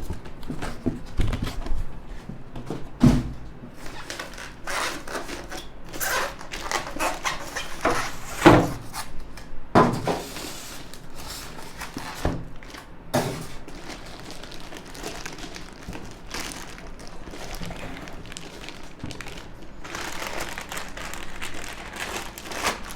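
Packaging being handled during an unboxing: irregular rustling and scraping, with several knocks and thumps, the loudest about three, eight and a half, ten and thirteen seconds in, and a steadier rustle near the end.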